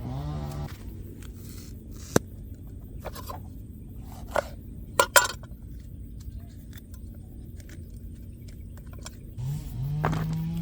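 A few sharp clicks and knocks over a low steady rumble: the loudest is a single click about two seconds in and a cluster of three or four about halfway through. Near the end a held, pitched tone comes in.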